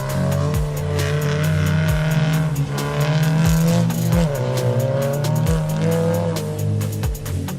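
Music with a steady beat over a rallycross car's engine revving, its pitch rising and falling.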